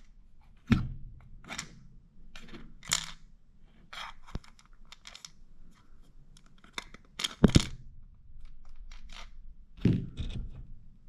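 Plastic parts of a car door handle being handled and pressed into place: a string of sharp clicks and knocks, the loudest a double knock about two-thirds of the way through.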